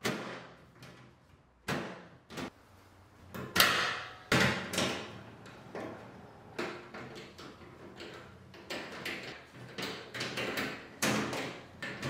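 Washing machine rear panel being pushed into place, with several sharp knocks and clunks, then a hand screwdriver driving its screws back in with a run of small clicks and scrapes.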